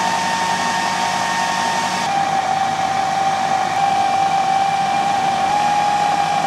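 Food processor motor running steadily while water is added to flour and butter crumbs to bring shortcrust pastry together. Its whine drops to a lower pitch about two seconds in, and the motor stops at the very end.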